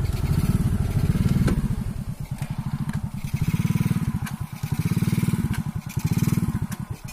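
Motorcycle engine running, growing louder and softer several times.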